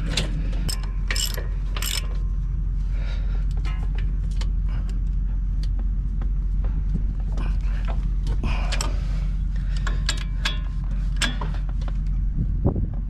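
Scattered metallic clicks and clinks of hand tools on the brake assembly as a bolt is threaded in and tightened, with a steady low hum underneath.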